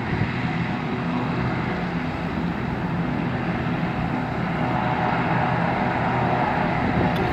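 Sea King rescue helicopter running on the ground: a steady drone of turbines and rotor, growing a little louder about halfway through.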